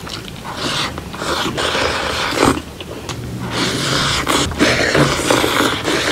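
Close-miked eating sounds: a person chewing with wet mouth noises in irregular bursts, broken by a few sharp clicks.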